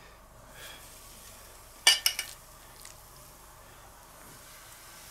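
Metal grill tongs clinking against a stainless steel bowl and the grill grate as raw chicken breasts are laid on, with a quick cluster of sharp clinks about two seconds in and a few fainter taps.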